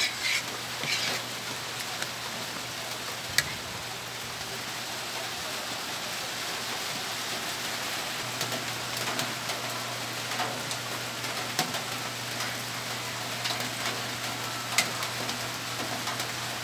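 Steady rain falling, with a few scattered sharp ticks.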